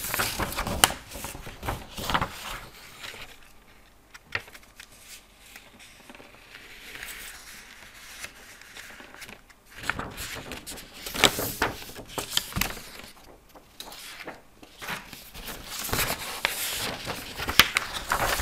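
Desk handling noises close to the microphone: irregular clicks, rustling and scraping in clusters, with a quieter stretch between about three and ten seconds in.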